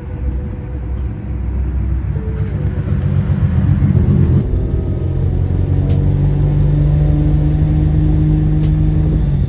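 1950 Hudson Commodore's engine growing louder as the car drives up and passes close by. About halfway through, the sound changes to a steady engine hum at an unchanging pitch as the car runs at an even speed.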